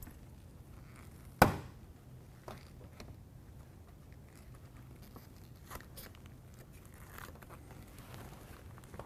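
Handling noise of hand work at a window air conditioner's side panel and window frame: one sharp knock about a second and a half in, then a few faint clicks and rustles, over a low steady room hum.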